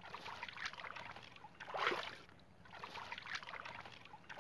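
Shallow muddy water sloshing and splashing as hands scoop and swish through it, in uneven surges with a louder splash about two seconds in.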